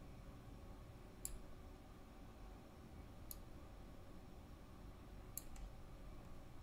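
Computer mouse clicking: single sharp clicks about two seconds apart, the last a quick pair, over a faint low hum.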